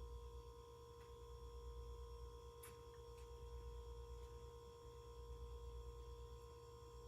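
Near silence, with a steady electrical hum and a thin steady pitched whine. A few faint clicks sound about a second in and again around three and four seconds in.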